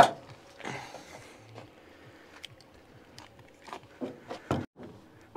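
Handling noise from a camera being moved and set down: faint rustling with scattered light clicks and a couple of slightly louder knocks about four seconds in.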